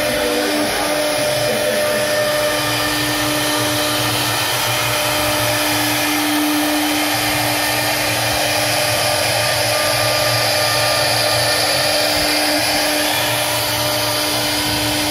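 CNC router spindle running steadily while its bit carves a relief into a wooden panel: a constant whirring hum with a steady tone, over the hiss of the bit cutting wood.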